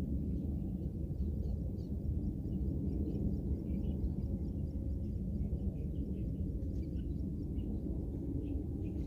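Steady low outdoor rumble, with faint, scattered short high chirps over it.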